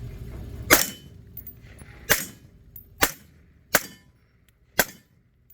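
Five semi-automatic rifle shots fired at an uneven pace, roughly a second apart, the first the loudest.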